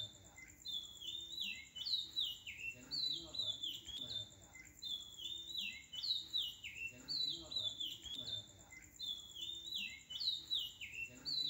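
Chirping, bird-like calls that repeat the same short falling phrase about every two seconds, as in a looped background soundtrack. There is no steady motor sound from the hand mixer.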